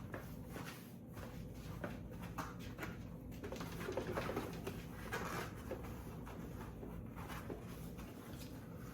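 Faint handling sounds: scattered light clicks, knocks and rustles as a leg is fitted onto a Crackles clown animatronic, over a low steady room hum.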